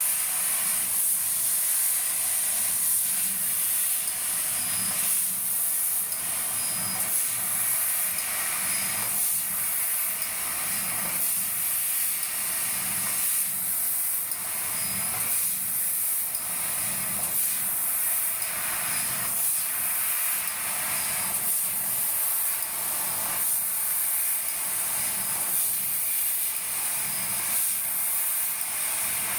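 Steady hiss, strongest in the highest pitches, with faint short high tones repeating about once a second.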